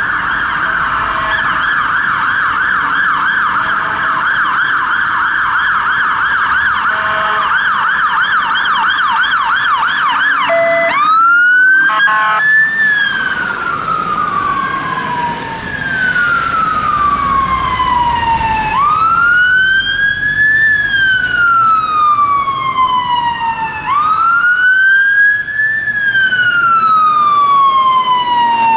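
London Fire Brigade fire engine sirens on an emergency response: first a fast warbling yelp, then about eleven seconds in a switch to a slow wail that rises sharply and falls away over about five seconds, cycle after cycle.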